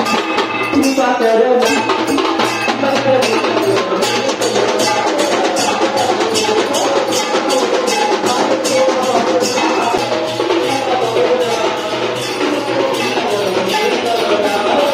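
Music with a steady clacking percussion beat under a melody.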